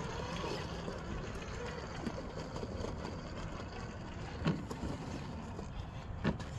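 Electric RC rock crawler's brushed motor and geartrain running under load as it climbs over boulders, with two sharp knocks of the truck against rock, the second near the end.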